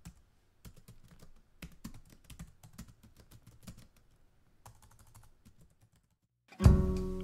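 Computer keyboard typing: an irregular run of quiet key clicks. Music comes in suddenly and loudly near the end.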